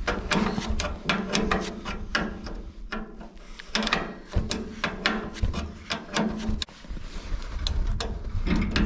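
Socket ratchet wrench clicking in quick uneven runs as a nut is turned, taking the old resistor off a Farmall B tractor.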